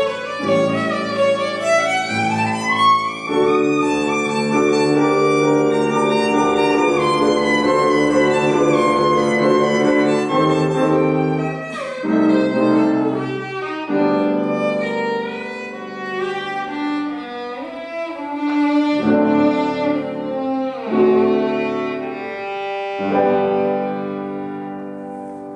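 Violin played with piano accompaniment: a rising run over the first few seconds, then long held violin notes over piano chords, fading on a last held note near the end.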